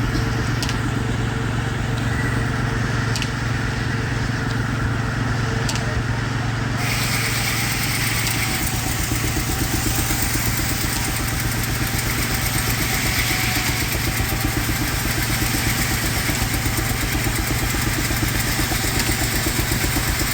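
Steam-powered sawmill running: a Baker steam engine drives a Frick mill's 60-inch circular saw with a fast, even beat, while the blade cuts a poplar log. A brighter, higher noise joins about seven seconds in.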